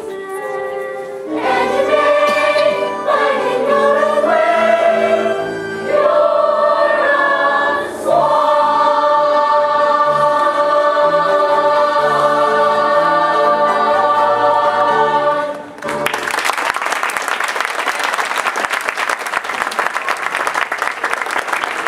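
A children's stage cast singing in chorus with musical accompaniment, ending on a long held final chord. The chord cuts off about three-quarters of the way through, and an audience breaks into applause.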